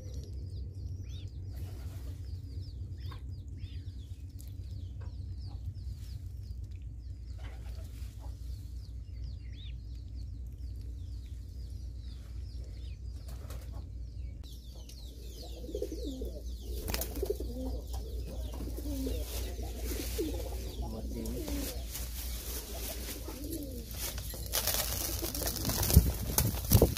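Ducklings peeping while they feed from a metal bowl, then, from about halfway, domestic pigeons cooing. A few sharp clicks come near the end.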